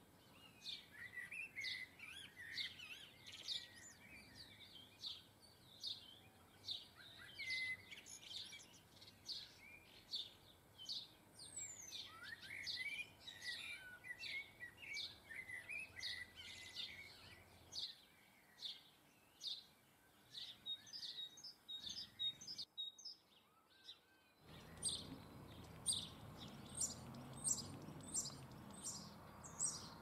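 Garden birds chirping and singing, a steady run of many short high chirps and trills. The birdsong drops out briefly about 23 seconds in, then returns over a faint low background hum.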